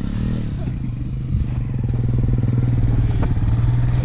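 Honda ATV engine running at a steady pull as the quad drives through soft sand, growing louder as it comes closer.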